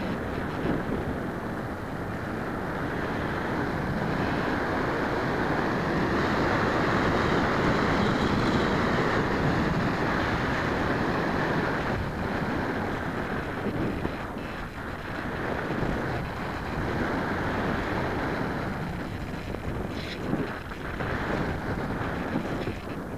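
Airflow rushing over the microphone of a camera riding on a radio-controlled model airplane in flight, a steady roar of wind that swells and dips.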